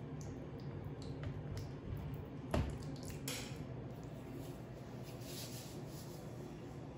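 A silicone spatula squelches through a soft, wet paste in a plastic tub, with small clicks. A single sharp knock comes about two and a half seconds in, over a steady low hum.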